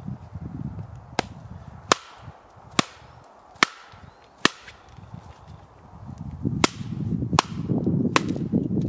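Wooden baton striking the back of a hatchet head driven into a log to split it: eight sharp wooden knocks, about one a second, in a run of five and a run of three with a pause of about two seconds between.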